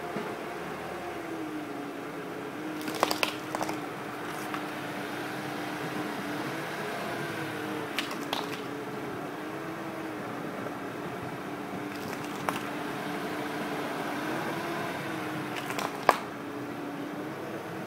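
A Nikon CoolPix compact camera being crushed under a slowly rolling car tyre: about half a dozen sharp cracks and crunches of its plastic body and screen breaking, the loudest near the end. Under them runs the car's engine with a steady hum that rises and falls a little as the car creeps forward and back.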